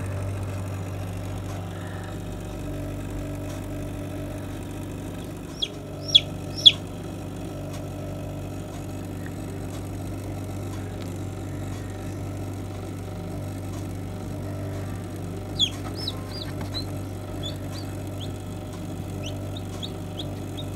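Newly hatched chicks peeping: a few loud high chirps about six seconds in, then a run of shorter, quicker peeps from about fifteen seconds on. Under them runs a steady low hum from the computer fan fitted in the incubator.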